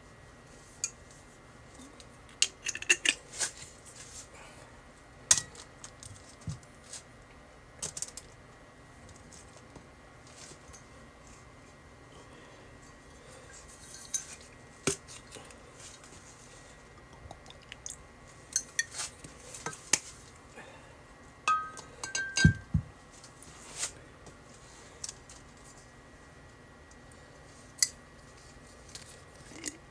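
Kitchen handling sounds: scattered sharp clicks, taps and knocks as sauce bottles are uncapped, poured over sliced beef in a ceramic bowl and set down, with a short squeak and a low thud a little over two-thirds of the way through.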